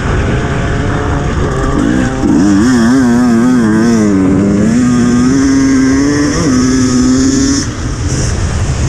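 Enduro dirt bike engine running hard at speed on gravel, heard over heavy wind rumble. About two seconds in its note wavers rapidly up and down, then holds steady and climbs slightly, and near the end the throttle closes and the note drops away.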